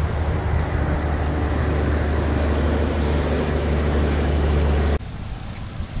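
Gusty wind buffeting the camcorder's microphone: a loud, steady low rumble that cuts off abruptly about five seconds in, leaving a quieter hiss.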